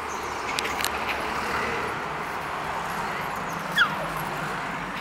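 Two dogs play-wrestling, with a few light scuffling clicks and one short high yelp that falls steeply in pitch about four seconds in, over a steady background hiss.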